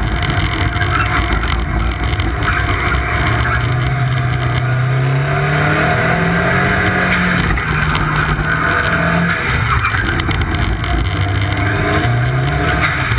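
Turbocharged Chevrolet Sonic's four-cylinder engine revving up and down repeatedly as the car is driven hard through an autocross course, heard from the front bumper over a steady rushing noise.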